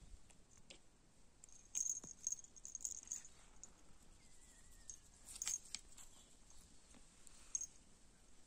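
Faint, scattered clicks and small jingles as a kitten in a collar rolls and squirms on dry, gravelly dirt.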